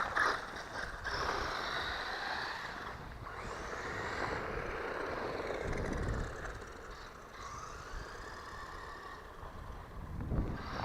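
Small brushed electric motor of a 1/12-scale RC truck (WLtoys 12428) whining as it speeds up and slows, its pitch rising and falling, over a steady rushing hiss.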